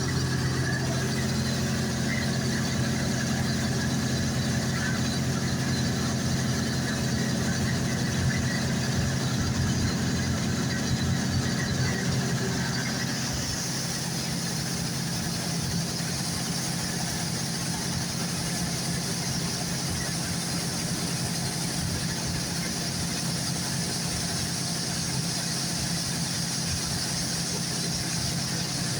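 John Deere combine running steadily while harvesting barley: a continuous drone of engine and threshing machinery. About 13 seconds in, the low hum drops a little and a higher hiss grows stronger.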